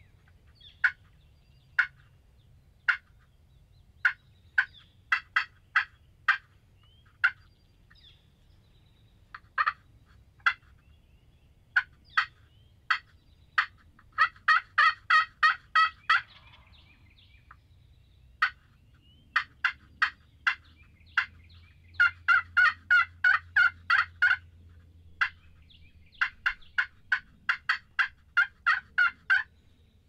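Wild turkeys calling: single sharp call notes spaced a second or more apart, then fast runs of calls about halfway through and again twice in the last third.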